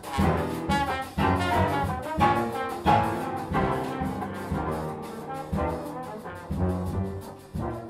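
Jazz big band playing, with the brass section to the fore and short sharp hits punctuating the horns.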